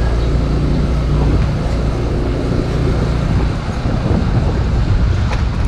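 Small motorcycle engine running while riding along, with steady road and wind noise on the microphone.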